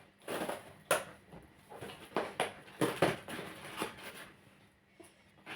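Parcel packaging handled and torn open by hand: irregular rustling, scraping and crinkling strokes, pausing briefly near the end.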